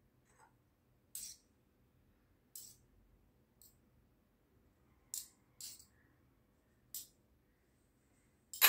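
Metal spoon clinking and scraping against a plate as sandwich filling is spooned onto bread, in scattered short strikes, the loudest near the end.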